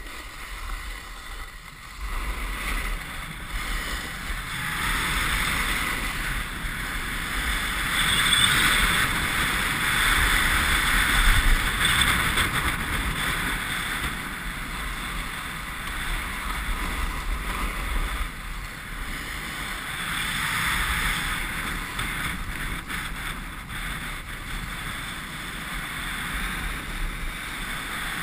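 Snowboard sliding down groomed snow, its base and edges hissing and scraping steadily, mixed with wind rushing over the microphone. It grows louder about two seconds in as the board picks up speed.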